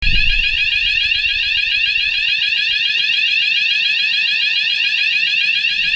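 Building fire alarm sounder going off: a loud, continuous high-pitched warble made of quick repeating sweeps.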